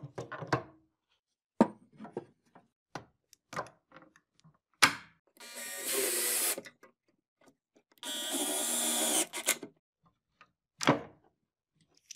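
Metal locking C-clamp pliers clicking shut on a wooden joint, with a few knocks as the boards are handled. Then a cordless drill drives a screw into the wood in two runs of about a second and a half each, followed by a single knock.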